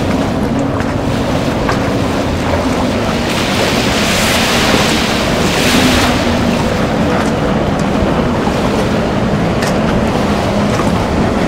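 A boat's engine running steadily under way, with wind buffeting the microphone and the rush of water around the hull; the wind and water noise swells about midway.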